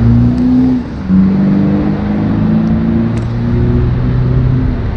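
Steady low machine hum with a few held tones; the pitch drops about a second in, then slides slowly, and the tones fall away near the end.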